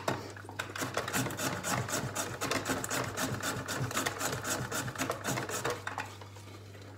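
Cake batter beaten by hand in a glass mixing bowl: a fast, even rhythm of scraping strokes against the glass, which stops about six seconds in.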